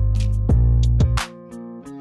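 Background music: sustained deep bass notes and pitched tones with a steady beat.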